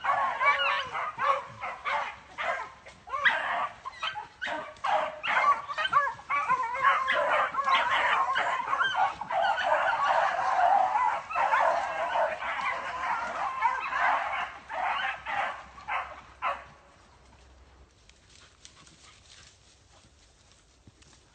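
A pack of beagles baying continuously, many voices overlapping as they run a swamp rabbit's track. The chorus falls away about three-quarters of the way through, leaving it nearly quiet.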